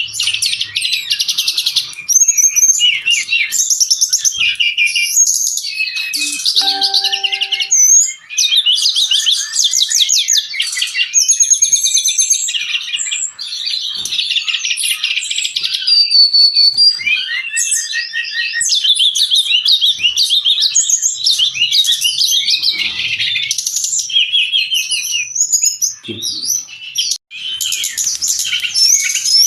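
Brown-chested jungle flycatcher in full, vigorous song: a rapid, nearly continuous stream of high chattering trills and short whistled phrases, with only brief breaks.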